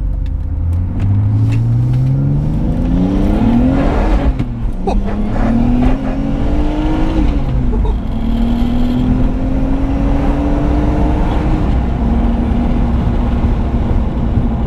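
Turbocharged BMW M54B30 straight-six heard from inside the cabin, pulling away and accelerating through the gears: the engine note climbs steadily and drops back at each of three upshifts.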